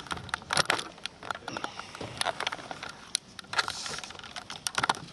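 Scattered sharp clicks, some in quick clusters, from press cameras' shutters firing, over a shuffling, bustling room.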